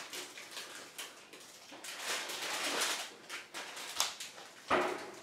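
Paper being handled and crinkled, a dry rustling with fine crackles that is loudest about halfway through. A short, sharp, louder sound comes near the end.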